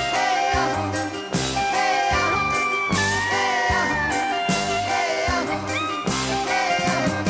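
Recorded music: a song with a gliding lead melody over a steady beat of drums and bass. It is captured cleanly straight from a DAC/headphone amplifier's headphone output.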